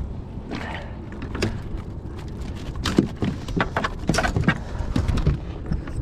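Irregular knocks and rattles as a landing net holding a thrashing flathead is swung aboard and dropped onto a kayak's deck, the net frame knocking against the hull, with the loudest knocks around the middle.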